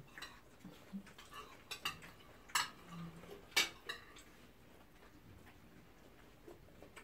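Scattered clinks and taps of spoons and forks against plates and bowls during a meal, with two sharper clinks about two and a half and three and a half seconds in.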